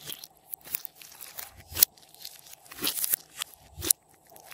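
Hands squeezing and kneading a large lump of slime, with irregular wet crackles and pops as trapped air bursts. There is a sharp pop near the middle and another near the end.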